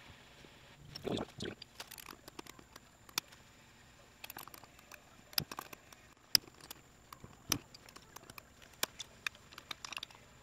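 Snap-ring pliers working a heavy steel C-clip off a gear shaft in a Toyota E153 transaxle: irregular sharp metal clicks and ticks, with a short scrape about a second in.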